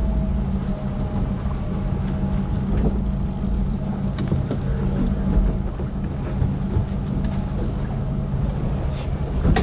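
Sport-fishing boat's engine running steadily: an even, low drone.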